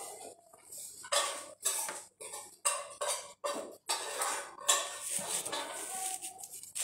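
Dishes and cutlery clattering on a table close to the microphone: a quick, irregular run of clinks and scrapes.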